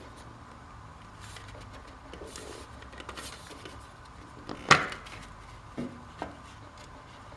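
Things being handled by hand: soft rustling, one sharp clack nearly five seconds in, and two lighter knocks about a second after it.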